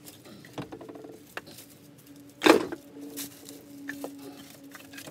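A single heavy thump about halfway through, with a few lighter knocks and rustles around it; a steady low hum sets in just after the thump.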